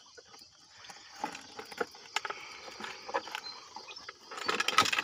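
Plastic gallon-jug eel trap and nylon mesh net bag being handled: scattered rustles and light knocks, thickest and loudest near the end, over a steady high drone of insects.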